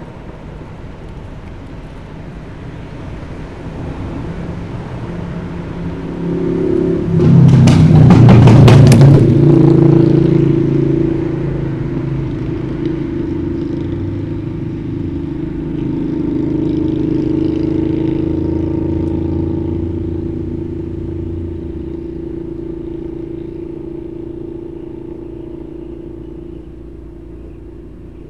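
A motor engine running steadily, growing loud about seven seconds in with a brief burst of rattling, then slowly fading.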